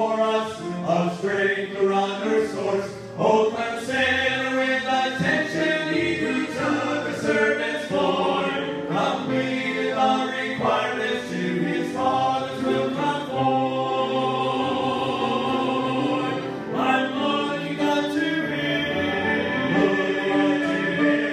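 Choir singing a gospel hymn, settling into long held chords in the second half.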